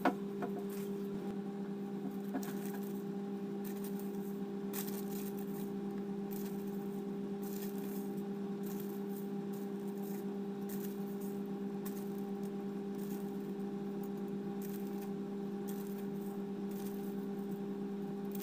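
A steady low hum runs throughout, under light clinks and scrapes of a metal spoon in a bowl of flour and sugar, with a plastic bag rustling now and then. A sharp click comes right at the start.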